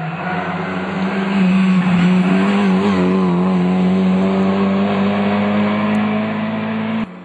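Rally car engine heard from inside the cabin, running hard at high revs with a nearly steady pitch that wavers a little. It cuts off abruptly near the end.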